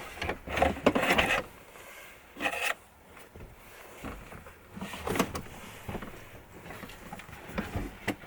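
A few separate knocks and rubbing sounds of things being handled, a cluster about a second in, then single ones at roughly two-and-a-half-second intervals.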